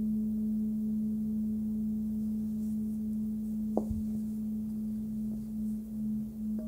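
Nepalese singing bowl, 18.5 cm and tuned to about 213 Hz (between G# and A), ringing on with a steady low hum; a fainter overtone about an octave up fades out in the first second. A single brief knock about four seconds in, and the tone starts to waver near the end.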